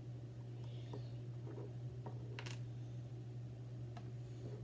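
Light-up Lego bricks being handled and fitted together: a few faint, short plastic clicks, the clearest about two and a half seconds in, over a steady low hum.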